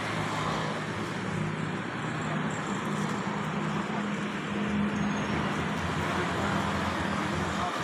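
A motor vehicle engine running steadily: a low, even hum under a broad rushing noise, getting a little louder around the middle.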